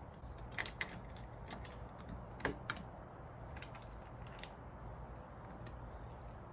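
Scattered faint clicks and taps of a sliding glass door handle and its key lock mechanism being handled and pushed together, about seven small clicks spread irregularly.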